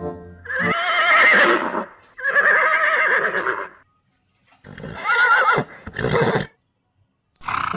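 Horse whinnying: four neighs in a row, the first two long and the last two shorter, each with a quavering pitch.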